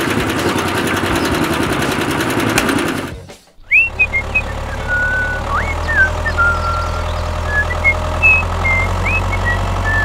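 A toy cement mixer's small electric motor runs with a fast whirring rattle for about three seconds, then cuts off suddenly. After that a steady low engine drone from a toy tractor runs under short high chirps.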